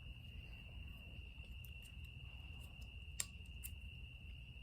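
A steady, high-pitched cricket trill in the background, with a short faint click about three seconds in.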